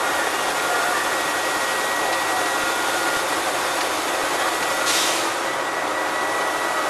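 Inside a moving bus near its rear engine: a steady rush of engine and road noise with a faint high whine. A short hiss comes about five seconds in.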